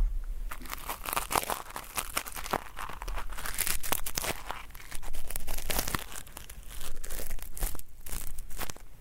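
Ear pick scratching in the left ear, dense irregular crisp crackling and scraping strokes meant as dry earwax being picked at without coming loose.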